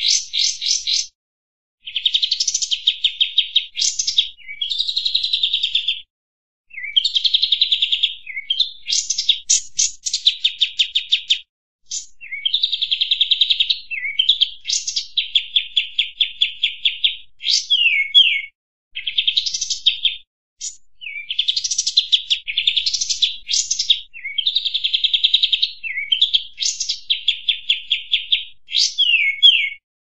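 Kapas tembak, a bulbul, singing a long series of fast chattering, trilled phrases, each one to two seconds long with short pauses between, some ending in quick down-slurred notes.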